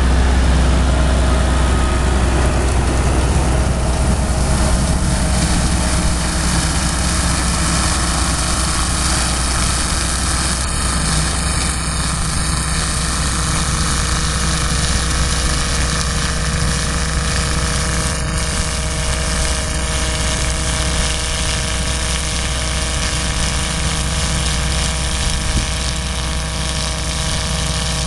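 Massey-Ferguson 390 tractor's diesel engine running steadily, driving a New Holland 40 horizontal-axis shredder that is milling mustard, with a strong, even low hum throughout.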